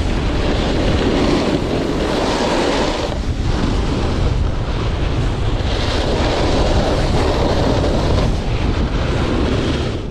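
Snowboard carving down a groomed slope: the board's edges hissing and scraping on the snow in long swells, under heavy wind rumble on the microphone.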